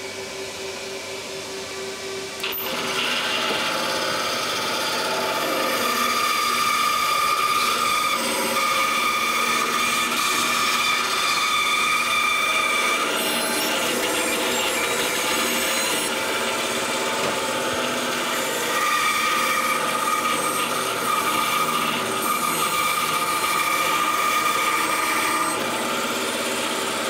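Workshop dust extractor running steadily while a bandsaw, switched on about two and a half seconds in, cuts the outline of a wooden shoe-last block. A higher steady whine rises over the machine noise while the blade is in the wood, in two long cuts with a short pause between them.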